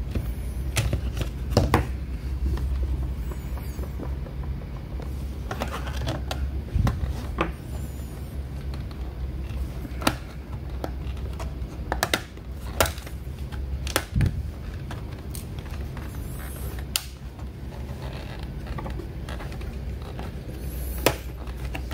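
Scattered plastic clicks and knocks of a laptop being taken apart, its battery pulled and back cover opened, over a steady low hum.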